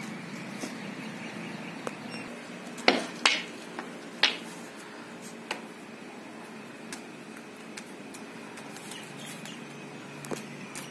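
Bamboo silambam staff being twirled, with three sharp knocks close together about three to four seconds in and a few fainter clicks, over a steady background hum.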